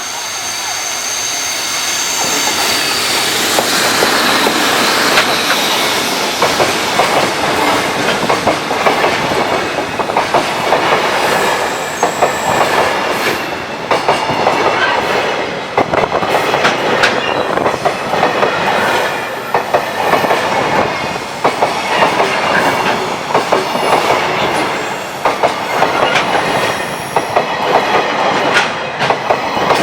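Freight train hauled by a JR Freight EF65 electric locomotive passing close by: the rumble of the wagons builds over the first few seconds and then holds, with a steady clickety-clack of wheels running over rail joints.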